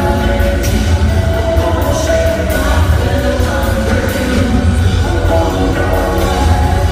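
Live band playing with a steady beat and heavy bass: sung vocals over electric guitar and synthesizer.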